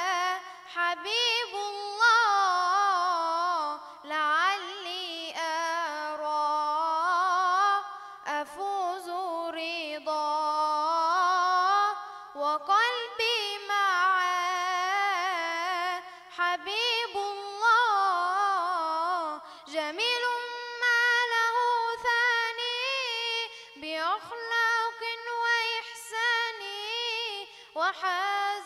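A boy singing an Islamic religious chant (inshad) unaccompanied, in long wavering, ornamented notes. His phrases break for a short breath about every four seconds.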